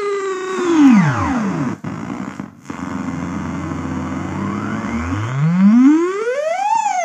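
Knas Ekdahl Polygamist analog synthesizer sounding a buzzy tone that holds, then glides down in pitch and drops out about two seconds in. A noisy low drone follows, and near the end a tone sweeps up in pitch.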